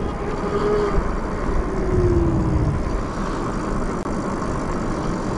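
Electric bike ridden at speed: wind buffeting the microphone in gusts, with tyre noise on asphalt. The motor's thin whine shows twice, the second time falling in pitch.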